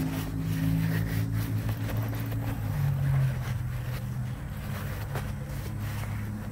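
An engine running steadily, its pitch shifting a little about halfway through.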